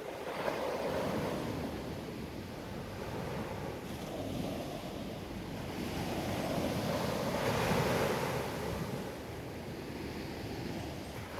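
Surf: waves washing in and drawing back in a steady rush, swelling near the start and again past the middle.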